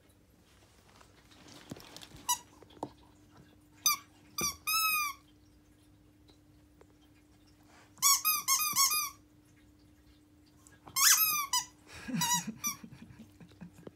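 Rubber pig squeaky toy squeezed in a Siberian husky's mouth, squeaking in short bursts: a couple of squeaks about four seconds in, a quick run of squeaks around eight seconds, and another cluster near the end.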